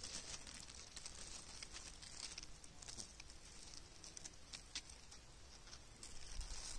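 Faint outdoor ambience: a soft hiss with many light, scattered ticks and rustles.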